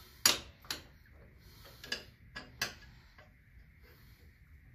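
Craftsman ratchet with a 12-point socket working a transmission bolt: a handful of sharp metallic clicks and knocks at uneven intervals, the loudest about a quarter second in.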